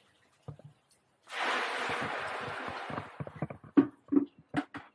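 Water being poured while coffee beans are washed: a steady rush for about a second and a half, then a run of sharp knocks and clatters, the loudest near the end.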